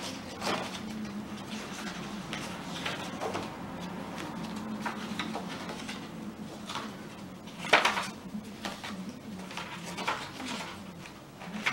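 Paper pages of a handmade journal being turned by hand: scattered short rustles and flicks of paper, the loudest about eight seconds in, over a faint steady low hum.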